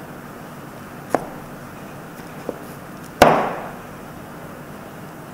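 Chef's knife cutting down through a block of cold butter and striking the wooden cutting board beneath its paper wrapper: a light tap about a second in, then one sharp knock a little after three seconds.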